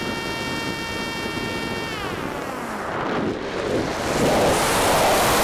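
Electric motor and propeller of a mini FPV flying wing, heard from the onboard camera. It whines at a steady high pitch, then drops in pitch about two seconds in as the throttle comes off. A rising rush of wind on the microphone takes over as the wing dives.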